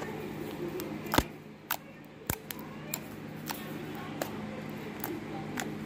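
Homemade slime being squeezed and worked by hand, giving off irregular sharp clicks and pops.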